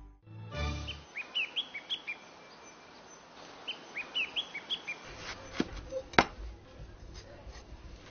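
Small birds chirping outdoors in short, quick high notes, in two bursts during the first half. After that come a few sharp knocks, the loudest about six seconds in.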